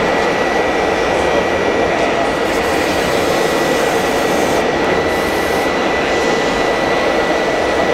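Electric drive of a 1/14-scale radio-controlled model machine running steadily, a constant mechanical whine with a high steady tone.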